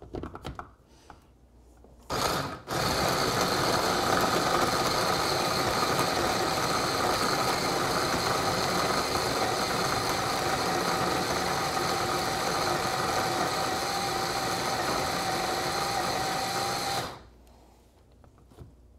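Electric blender motor pulsed briefly about two seconds in, then run steadily for about fourteen seconds, blending a thick paste of dates, cashew flour and cacao, and switched off abruptly.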